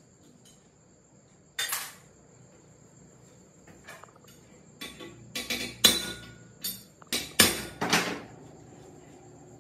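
Sharp metallic knocks with brief ringing, like hammer blows on metal: one a little way in, then a quick run of about ten in the second half. A steady high-pitched insect drone runs underneath.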